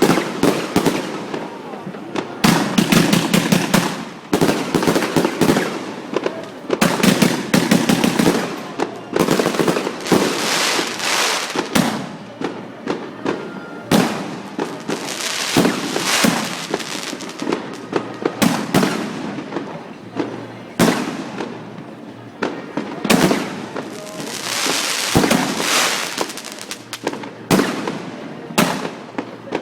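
Fireworks going off one after another: sharp bangs mixed with rapid crackling volleys, with short lulls between them.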